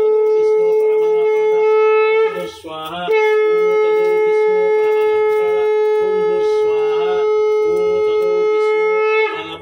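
Conch shell (shankha) blown in long, steady, loud notes at one pitch. A short break for breath comes about two and a half seconds in, then a long held note of about six seconds that stops just before the end.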